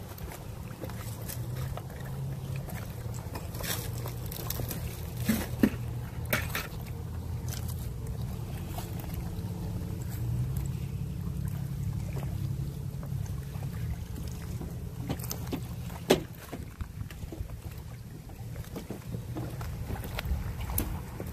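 Low wind rumble on the microphone along a bay shore, with scattered small clicks and two sharper knocks, about five and a half and sixteen seconds in.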